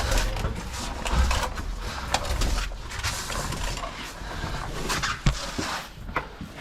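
Scraping, knocking and rustling as a caver moves gear through a cave passage, with scattered sharp knocks over an uneven low rumble.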